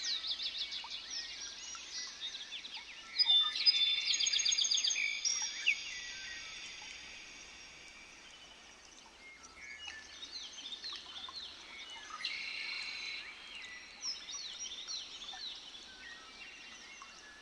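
Several wild birds singing and calling at once, a dense chorus of quick chirps and trills. A louder song with sustained notes comes in about three seconds in and fades after a few seconds, and another loud burst of song comes about twelve seconds in.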